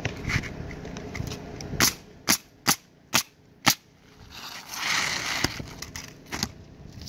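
Pneumatic coil roofing nailer firing five nails into asphalt shingles in quick succession, about two sharp shots a second. A brief rustle follows.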